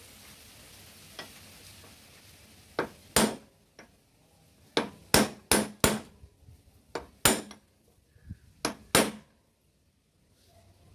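Hammer blows on metal during work on a Bajaj Chetak scooter's front wheel bearing race: about a dozen sharp, ringing strikes in irregular clusters, some in quick pairs.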